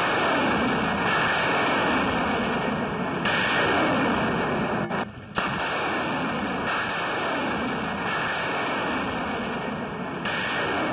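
BM-27 Uragan multiple rocket launcher firing a ripple salvo of 220 mm rockets. The rocket motors make a continuous rushing roar that surges again every one and a half to two seconds as further rockets leave the tubes. The sound drops out briefly about five seconds in.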